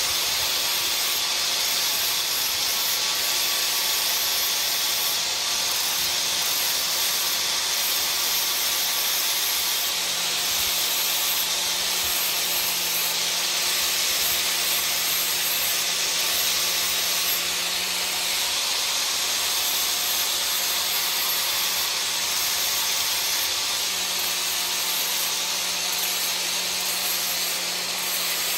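A steady, even hiss with a faint low hum beneath it, unbroken throughout.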